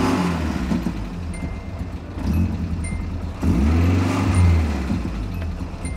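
Nissan 240SX S13's KA24DE 2.4-litre inline-four running just after being started, heard from inside the car, revved up and back down a few times, with the biggest rev about four seconds in.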